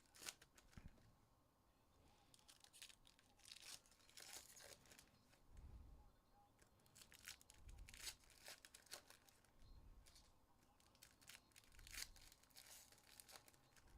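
Trading card pack wrappers being torn open and crinkled: faint spells of ripping and rustling, several times over.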